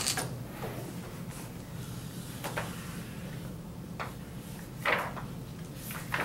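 Chalk on a blackboard: a handful of separate taps and short scrapes as a curve is drawn, the longest scrape about five seconds in.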